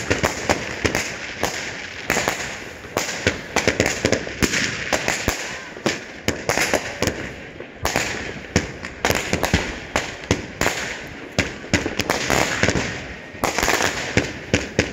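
Consumer aerial firework battery firing shot after shot. A quick, irregular string of pops and bangs, several a second, mixed with crackling from the bursting stars.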